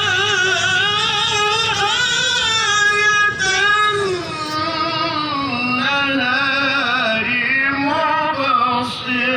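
Qur'anic recitation (tilawah) by a male qari, chanted in long ornamented melodic phrases with wavering pitch, heard over a public-address system. The melody drops to a lower register about halfway through.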